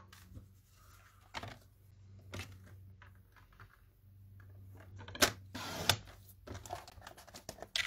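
Sliding-blade paper trimmer cutting a sheet of vellum: light clicks and taps as the sheet is lined up on the trimmer, then two sharp clacks and a short scrape of the blade carriage running down its rail about five seconds in.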